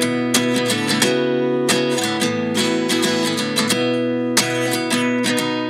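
Background music: an acoustic guitar strumming chords at a steady pace.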